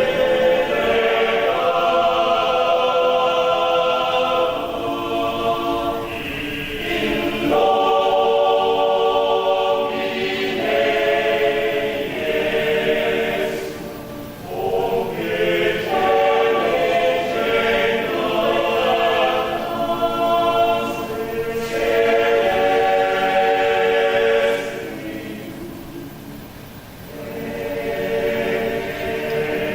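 A mixed choir singing a Catholic hymn in harmony, in sustained phrases with short breaths between them and a softer passage near the end.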